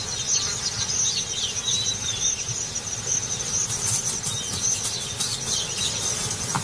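Grassland ambience: insects trilling steadily at a high pitch, with short bird chirps here and there over a low rumble.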